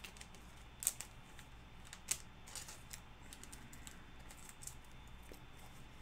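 Faint, scattered light clicks and taps of trading cards being handled and flipped through a stack, with two sharper clicks about one and two seconds in.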